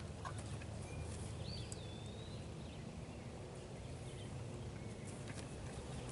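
Outdoor paddock ambience: a steady low rumble with faint shuffling hoof steps of horses on dirt. A bird gives one short whistled call about one and a half seconds in.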